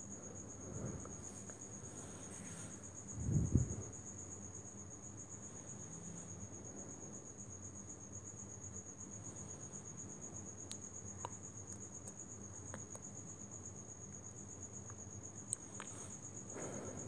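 A steady high-pitched trill throughout. A low thump comes about three seconds in, and a few faint sharp clicks later on as a screwdriver works the screws on a desktop motherboard.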